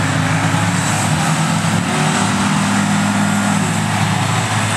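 Suzuki Samurai's engine running steadily under load as the small 4x4 tows a stuck pickup by a strap.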